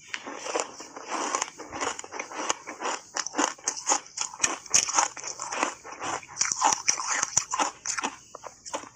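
Close-up crunching and chewing of refrozen ice coated in matcha powder: a dense, irregular run of crisp cracks as the ice breaks between the teeth.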